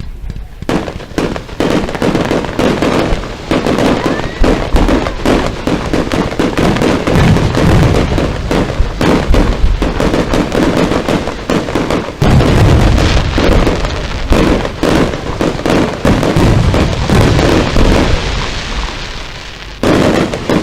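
Aerial fireworks display: a dense, loud barrage of shell bursts and crackling with hardly a gap, a brief dip about twelve seconds in, and a softer stretch near the end broken by a fresh loud burst.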